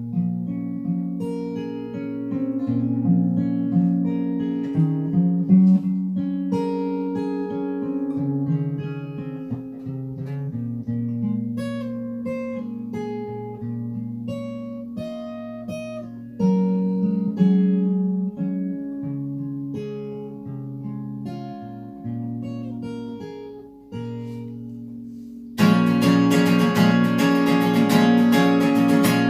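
Solo acoustic guitar playing picked notes and chords. Near the end it switches suddenly to louder, fuller strumming.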